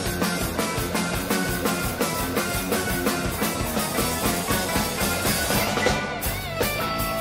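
Live rock band playing an instrumental passage: a drum kit keeping a steady, driving beat under electric guitars and keyboards. Near the end a lead line bends up and down in pitch.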